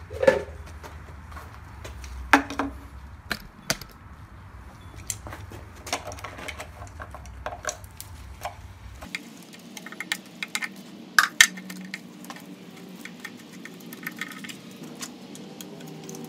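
Socket wrench clicking and clinking on the steel oil-pan bolts as they are loosened one by one: scattered sharp metal clicks, closer together in the second half. A low background hum stops about halfway through.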